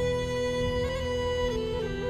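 Instrumental background music: a held melody note that steps down about one and a half seconds in, over low sustained chords.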